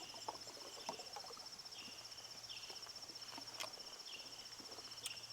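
Insects trilling outdoors in summer: a steady, fast-pulsing high-pitched trill with short chirps repeating about once a second, plus a few faint clicks.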